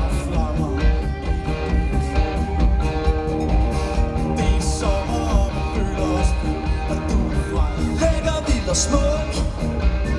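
Live pop-rock band playing loudly through a large PA, heard from within the crowd: a heavy bass beat with keyboards and guitar, and a voice singing at times.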